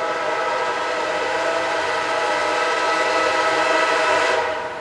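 Locomotive air horn sounding one long blast, a steady chord of several notes, cutting off shortly before the end.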